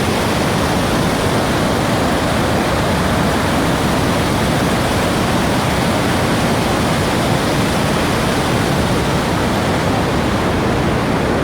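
Steady, loud rush of the Rhine Falls, a large river waterfall, as heavy water pours and crashes without a break.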